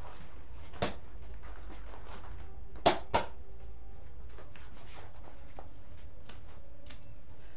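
A few sharp knocks and clicks of goods being handled at the shop's wire shelving, the loudest two close together about three seconds in, with a faint brief ring after them, over a steady low hum.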